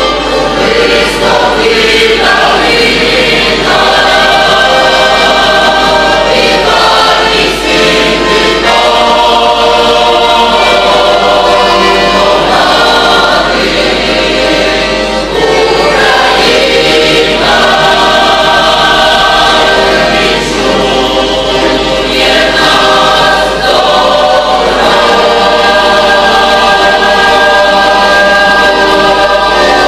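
Mixed choir of women's and men's voices singing in harmony, with long held chords.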